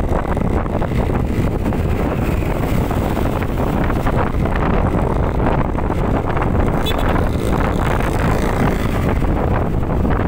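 Steady wind rush buffeting the microphone while riding a Yamaha NMAX scooter, with road and engine noise underneath.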